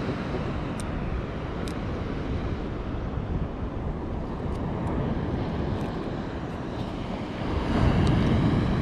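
Steady rush of surf and wind on a beach, swelling near the end as a wave comes in.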